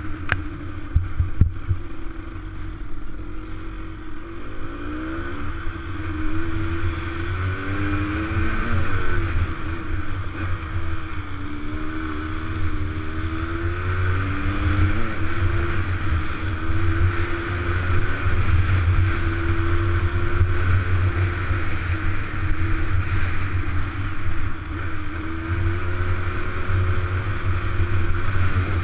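Dirt bike engine running under way on a gravel road, its pitch rising and falling several times as the rider accelerates and shifts, over a constant low rumble.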